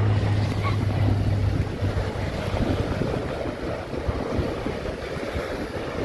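Small waves washing and breaking on a sandy shore, with wind buffeting the microphone. A low steady hum fades out about two seconds in.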